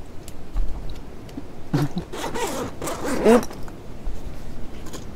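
Zipper on a canvas tent door being pulled, a few rasping strokes between about two and three and a half seconds in.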